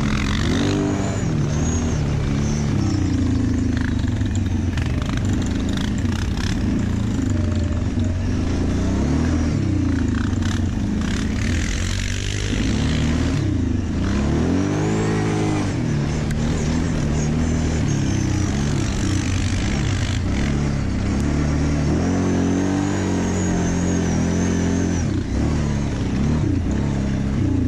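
Quad bike (ATV) engine running on and off the throttle, its pitch rising and falling again and again as the rider speeds up and slows on the trail, heard from on board the quad.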